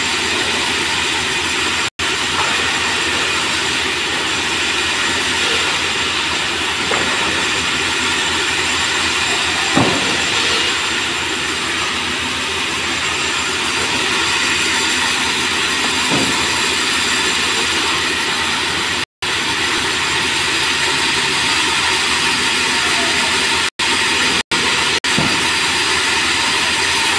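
Sawmill band saw running and cutting merbau hardwood planks: a loud, steady, dense industrial noise, broken by a few momentary dropouts.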